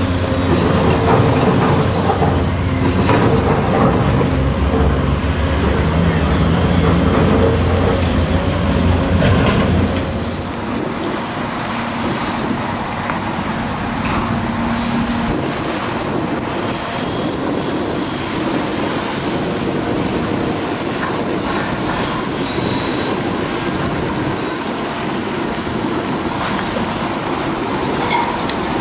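Caterpillar 735 articulated dump truck's diesel engine running loud and steady as it drives past loaded with rock. About ten seconds in it gives way to a quieter, even din of distant heavy machinery as an excavator loads dump trucks.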